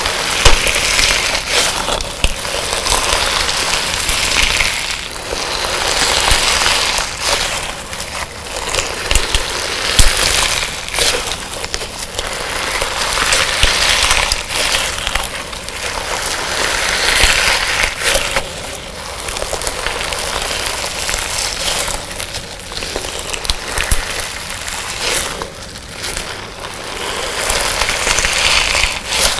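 Hands squeezing, pressing and stretching a colored-sand slime, a crunchy, grainy texture sound that swells and fades every few seconds with small sharp clicks.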